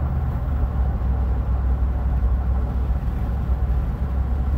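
Steady low rumble of a Jeep on the move, engine and road noise heard from inside the cabin.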